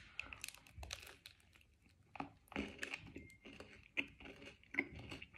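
A person biting into and chewing a chocolate protein bar close to the microphone: faint, irregular soft crunches and mouth clicks.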